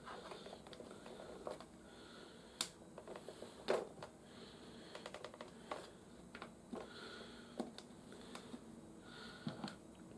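Hard plastic toy parts being handled and fitted together: scattered light clicks and taps, with a sharper click a little under four seconds in.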